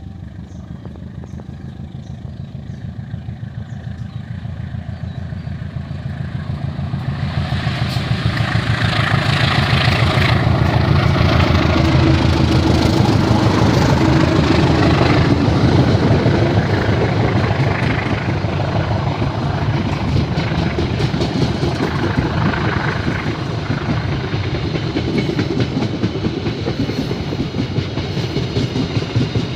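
A train approaching and running past, its wheels clattering rapidly over the rails. It grows louder over the first several seconds, then keeps on loud and steady.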